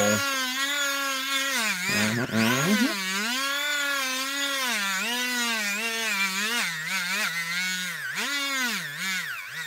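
Dremel Stylo rotary craft tool running as its bit grinds into a masking-tape sculpture. Its whine keeps sagging in pitch and recovering as the bit is pressed in and eased off, with a deep dip about two seconds in and several quick dips near the end.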